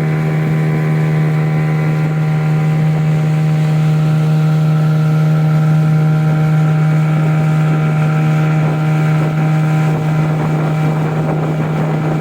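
Small boat's outboard motor running steadily at a constant speed, one unchanging engine drone.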